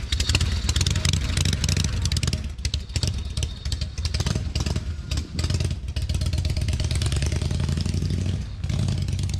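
1960 Harley-Davidson Panhead V-twin engine running as the bike pulls away and rides off, its note easing off briefly a few times.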